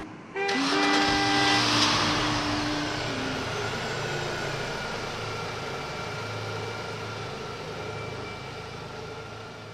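Motor vehicle passing close by, its noise swelling to a peak about two seconds in and then fading slowly into a steady background rumble, with a few held steady tones in the first three seconds.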